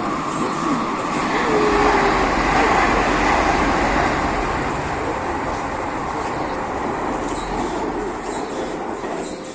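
A train running in along the station platform: a steady rush of rail noise that is loudest a couple of seconds in and then eases, with a brief squeal about a second and a half in.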